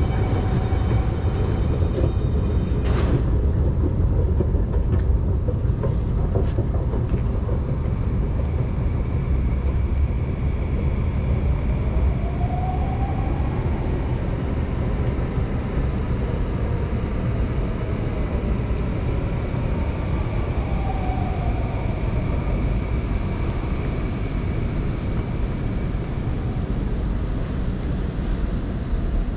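Steady low rumble of an underground metro station platform, with the station's ventilation and machinery running. There is a single click about three seconds in, and a thin high whine that grows louder near the end.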